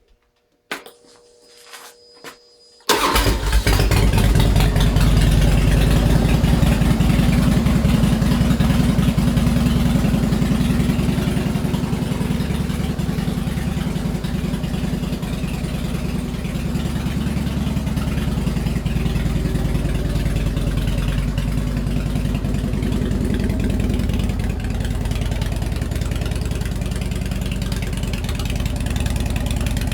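Harley-Davidson Springer Softail's fuel-injected Twin Cam 88B V-twin, breathing through Samson Big Guns upswept slash-cut pipes, starts about three seconds in and settles into a steady, loud idle.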